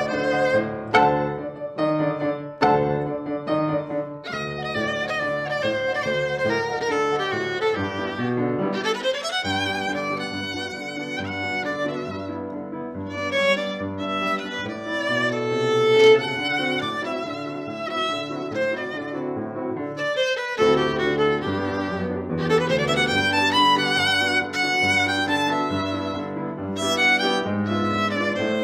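Violin and piano duo playing a lively tango, with short clipped chords at first and the violin sweeping upward in rising runs twice, about nine seconds in and again past twenty seconds.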